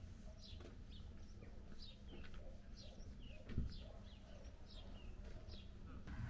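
A bird chirping over and over: short, falling high notes about two a second, faint, over a low steady hum. One soft thump about three and a half seconds in.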